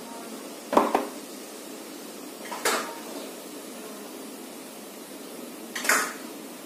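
Kitchenware clattering three times, about two seconds apart, over a steady hiss of cumin seeds frying in hot oil in an aluminium kadhai.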